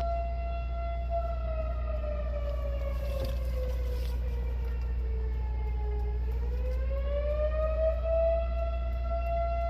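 Old air raid siren sounding a steady wail. Its pitch sinks slowly from about a second in, bottoms out past the middle, then climbs back to the steady tone.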